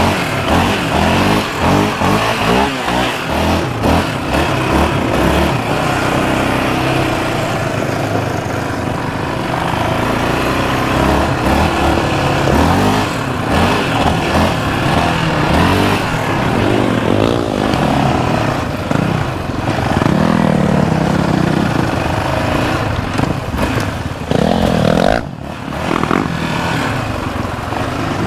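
Yamaha Raptor 700R sport ATV's single-cylinder four-stroke engine running under way, revving up and down with the throttle so its pitch rises and falls repeatedly over a steady rushing noise.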